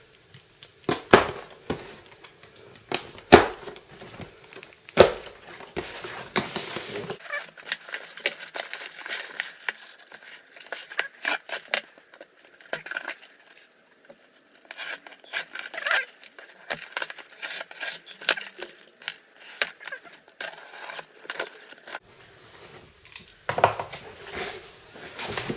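A cardboard parcel being cut and torn open with a knife: a few sharp knocks in the first five seconds, then a long run of crinkling, tearing and rustling packaging.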